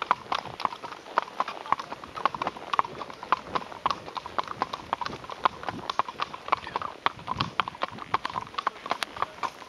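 Several horses' hooves clip-clopping on an asphalt road, their hoofbeats overlapping in an uneven patter of sharp clops.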